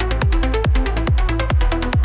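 Trance music: a four-on-the-floor kick drum at a little over two beats a second, with short hi-hat ticks between the kicks, a steady bass and repeating synth notes.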